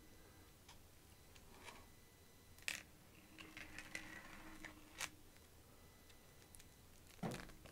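Faint handling noise of a large hardcover book on a table: a few light ticks and a soft scrape as hands touch and shift it, then a dull thump near the end.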